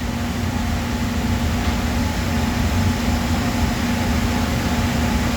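Steady mechanical hum of workshop machinery running, a constant low tone over a rumble.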